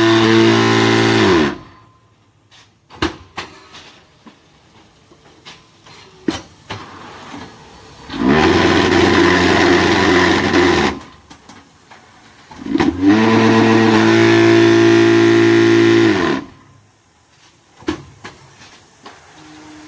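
QT6-15 concrete block making machine cycling through its moulding work. Its vibration motors run in three loud humming spells of a few seconds each: one stops about a second in, the others come near the middle and toward the end. The hum falls in pitch as the motors stop. Scattered metal clanks and knocks sound between the spells.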